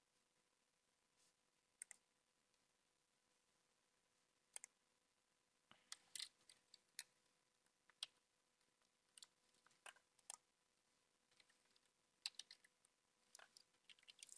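Faint computer keyboard keystrokes and mouse clicks, scattered one or a few at a time, with a quicker run of keystrokes near the end.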